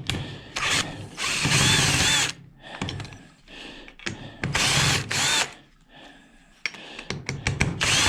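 A power drill-driver backing screws out of a washing-machine motor's cast aluminum housing, in three short runs whose whine rises and falls, with clicks and knocks of handling in between.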